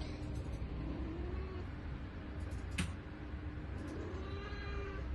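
A cat meowing twice: a faint short call about a second in and a longer, clearer call near the end, with a sharp click in between.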